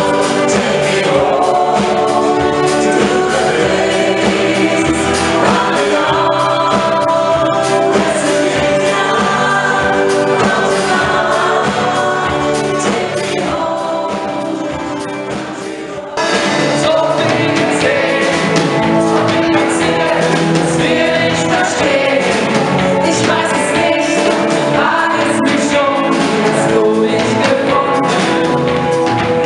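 Live band playing a song with a woman singing lead into a microphone and a crowd singing along, over drums, bass, guitar and keyboard. The music gets a little quieter, then comes back abruptly at full level about sixteen seconds in.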